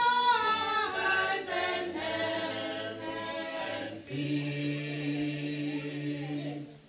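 A small group of men and women singing a hymn unaccompanied. The last phrase ends on a long held chord that stops just before the end.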